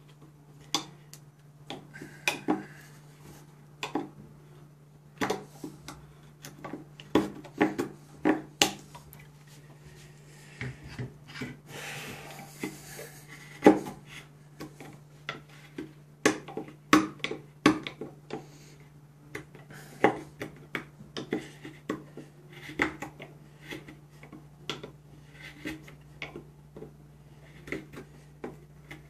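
Mora Companion MG carbon-steel knife cutting into a pine block by hand: short sharp clicks and scrapes of the blade in the wood, coming irregularly with each stroke. The edge has dulled from long cutting and is no longer biting well. A steady low hum runs underneath.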